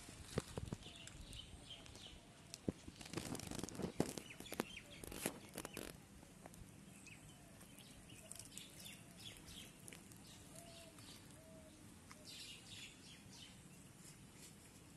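Faint outdoor ambience with small birds chirping here and there. A cluster of sharp clicks and rustling falls in the first half, loudest a few seconds in.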